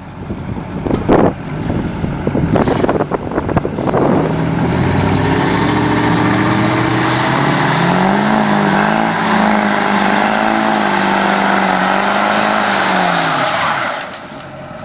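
Two pickup trucks chained together in a truck pull, a Chevrolet Silverado Z71 with aftermarket exhaust and a Duramax turbo-diesel, with their engines revving under full load. The revs climb over a few seconds, hold high and waver, then fall away and stop about a second before the end.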